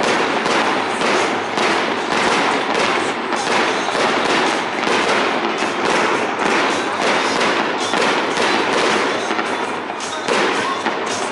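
Fireworks display: a dense, continuous barrage of aerial shell bursts and crackle, several bangs a second.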